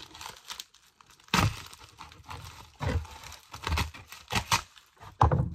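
Plastic bubble mailer crinkling and tearing in several short bursts as a dull old knife is worked through its edge to cut it open.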